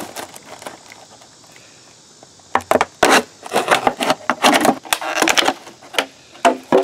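Objects being rummaged through: a quiet start, then, from a few seconds in, a run of irregular clattering and rustling knocks as things are moved about and handled.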